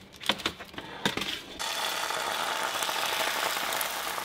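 A few light metal clicks and clatters of a baking sheet going onto an oven rack, then from about a second and a half in a steady sizzle of liquid plant-based egg (JUST Egg) in a hot oiled frying pan.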